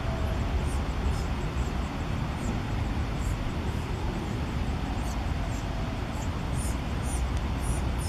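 Steady low rumble of distant road traffic, with faint, short, high chirps every second or so.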